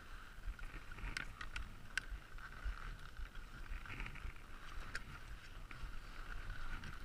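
Light wind buffeting the microphone of a GoPro action camera, a fluctuating low rumble with a faint steady hum above it, broken by a few sharp clicks.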